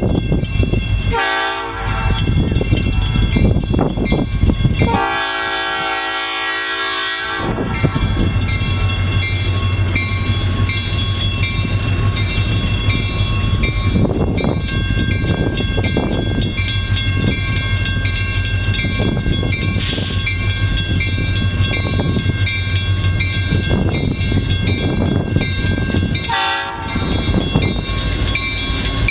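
EMD GP38 diesel locomotive sounding its horn for a grade crossing: a short blast about a second in, a long blast of about two seconds, and another short blast near the end. The locomotive's diesel engine runs steadily underneath as the freight cars roll over the crossing, with a crossing bell ringing.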